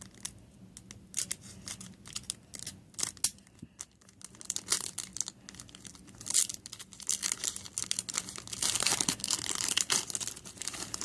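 Foil wrapper of a Pokémon TCG booster pack being crinkled and torn open. Scattered crackles come first, then a denser stretch of tearing and crinkling near the end.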